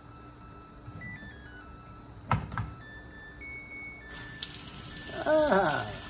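Two sharp clicks at the faucet head about two seconds in, then a kitchen faucet turned on about four seconds in: a steady stream of tap water running into a stainless steel sink, flowing freely again with its cleaned aerator refitted.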